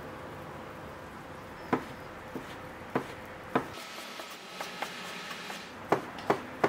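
Kitchen knife slicing thin sheets of egg omelette into strips on a cutting board: a handful of separate sharp knocks of the blade striking the board, with fainter ticks between them.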